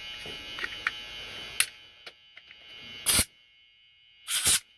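Two short blasts of canned air, about a second apart in the second half, blowing old grease and debris out of the pin chambers of a lock cylinder plug. Before them there is a faint steady hum and a few small clicks.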